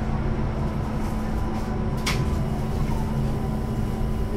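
Duewag/Kiepe B80D Stadtbahn light-rail car running: a steady low rumble with a constant hum, and one sharp click about two seconds in.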